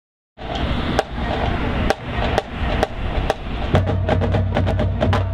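Full marching band playing, brass and woodwinds sounding chords over drumline percussion, starting suddenly about a third of a second in. Sharp percussion hits keep a beat of about two a second, coming faster in the second half as deep low-brass notes come in.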